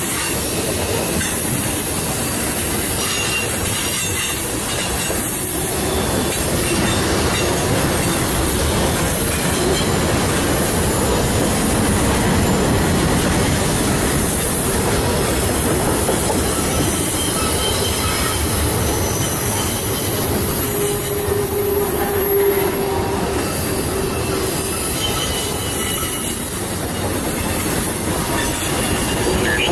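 Freight train of tank cars, covered hoppers and boxcars rolling past close by: a steady loud noise of wheels on the rails, with a thin high wheel squeal coming and going.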